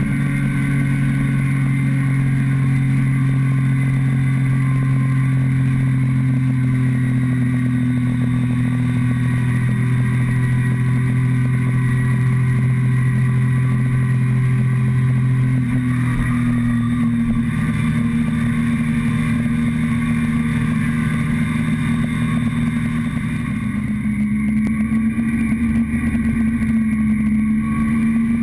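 Motorcycle engine running at a steady cruising speed, heard from the fuel tank, with wind noise. The engine note changes a little past halfway, then holds steady again.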